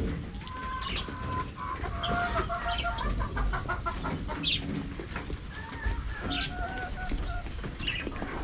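Chickens clucking, with several drawn-out calls about a second long and some quick repeated clucks.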